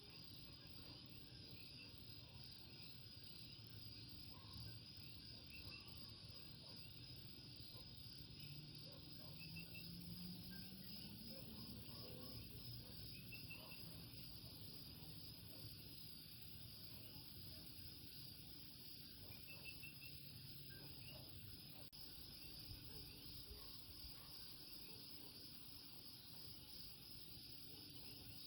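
Faint night chorus of Puerto Rican common coquí frogs and insects: a steady high-pitched trill with scattered short, repeated chirping calls. A faint low hum rises briefly in the middle.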